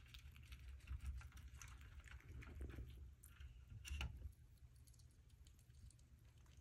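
Pet rats fishing peas and corn out of a clear plastic water dish: faint, scattered small clicks and taps, with a sharper click about four seconds in, over a low steady hum.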